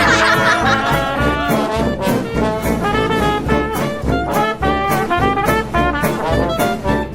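Upbeat background music led by brass, trumpet and trombone, over a steady beat.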